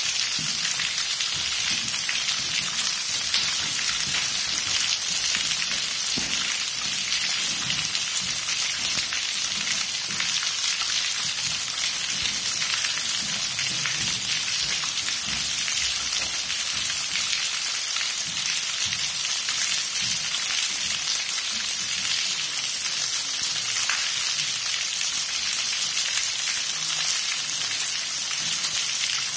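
Water dripping from a cave roof onto wet rock: many drops falling at once make a steady, dense patter like rain.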